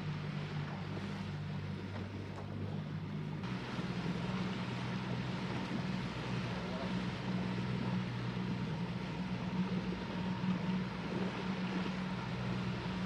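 Outboard motor of a small aluminium boat running steadily as the boat moves under way, with wind and water rushing past the hull. The engine note shifts suddenly about three and a half seconds in.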